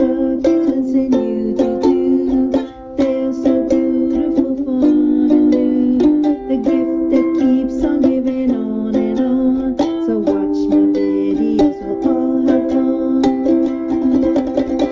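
Music: a string instrument strumming chords in a steady rhythm.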